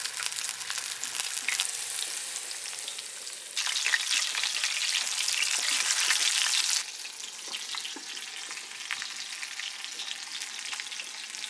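Battered mackerel and chicken tenders frying in hot oil: a steady sizzle full of small crackles, louder for a stretch from about three and a half to seven seconds in.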